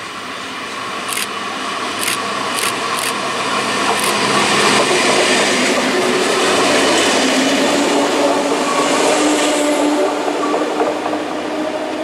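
CFL Z2 (Class 2000) electric multiple unit passing close by: a few sharp clicks in the first seconds, then the running noise of wheels on rail with a motor whine that shifts in pitch. It grows louder as the train draws level about halfway through and fades as it moves away.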